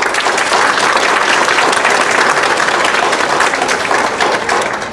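Audience applauding: many hands clapping in a dense, steady patter that begins to thin out near the end.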